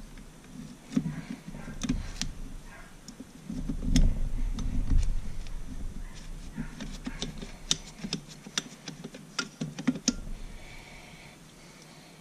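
Hand-handling clicks and knocks of metal on metal as a piston in a ring compressor is worked into a cylinder bore of an outboard two-stroke engine block. There are heavier knocks about four to five seconds in and a quick run of light ticks in the second half.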